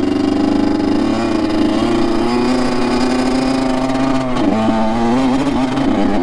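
Honda CR85 dirt bike's 85 cc two-stroke single-cylinder engine running under throttle while riding through slushy snow. The engine note holds fairly steady, then briefly drops and picks up again about four and a half seconds in.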